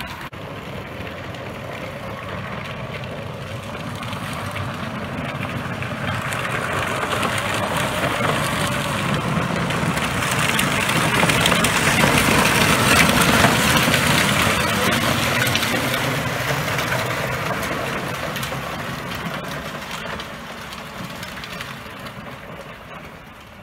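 A golf cart towing a chained toy car drives past on gravel, its motor running and the wheels rolling over the stones. The sound swells as it approaches, is loudest about halfway through, then fades as it moves away.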